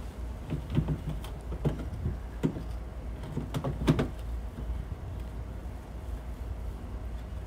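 Light plastic knocks and clicks of a mud flap being worked by hand into place against the van's wheel-well fender liner, about six taps in the first four seconds, over a steady low hum.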